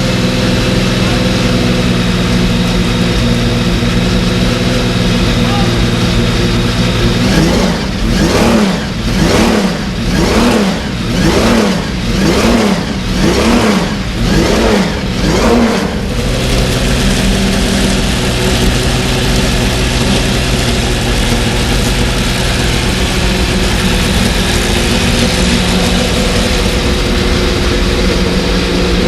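Porsche 917's air-cooled flat-twelve racing engine idling, then blipped about seven times in quick succession, about once a second, each rev rising and falling, before settling back to a steady idle.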